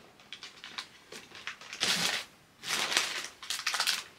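Packaging rustling and crinkling as items are handled. Light clicks and taps come first, then two louder bouts of rustling, the second the longer.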